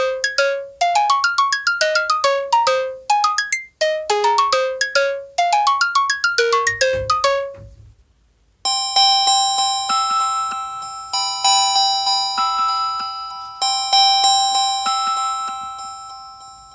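LG V20 phone ringtones. The first is a fast melody of short notes in quick rising runs that stops about halfway through. After a short gap a second ringtone starts: long ringing chime-like tones, several together, fading out toward the end.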